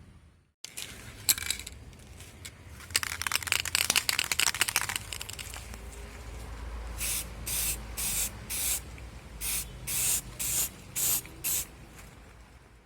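Aerosol spray can hissing in one long spray of about two seconds, then in about ten short squirts in quick succession.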